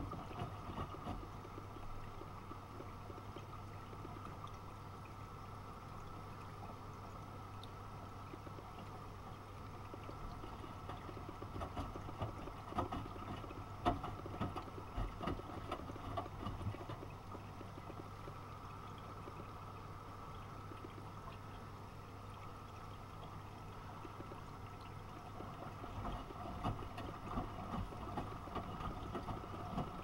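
Miele front-loading washing machine in its first rinse, the drum turning a water-soaked duvet: water sloshing and splashing against the door over a steady low hum. The sloshing grows busier for a few seconds about midway and again near the end.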